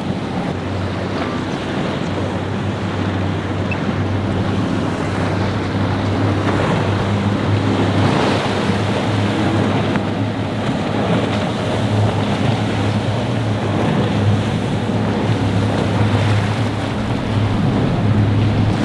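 Boat engine running with a steady low hum through rough water, mixed with the rush of breaking waves and wind buffeting the microphone.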